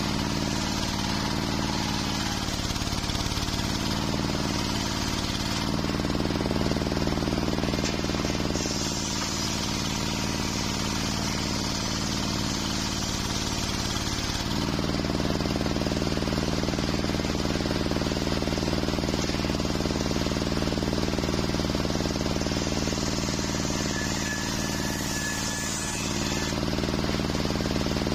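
Large circular sawmill blade ripping waru (sea hibiscus) timber, with a hiss of cutting over the steady hum of the saw's drive. The drive's note shifts about six seconds in and again around halfway as the wood is fed through.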